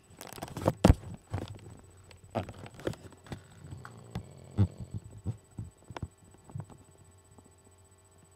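Dog snoring in short, irregular snorts, which thin out and grow faint near the end.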